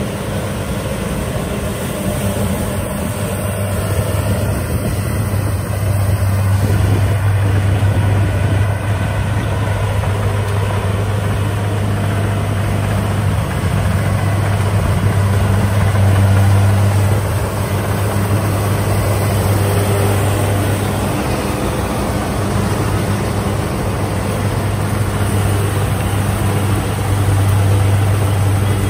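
Diesel engine of a rice-harvesting machine running steadily with a deep hum. It swells and eases a little every several seconds as the load changes.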